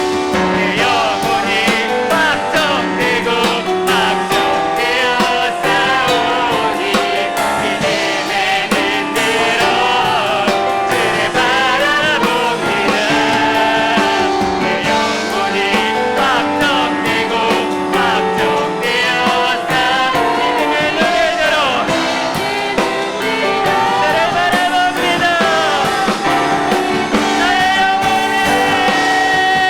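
Worship team singing a praise song in unison over piano and drums, with steady drum hits under the melody.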